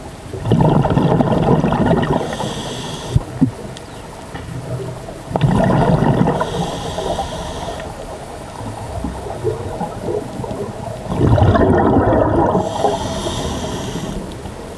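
Scuba diver breathing through a regulator underwater: three loud gurgling rushes of exhaled bubbles about five seconds apart, with a fainter hiss of inhaled air between them. A couple of sharp clicks come about three seconds in.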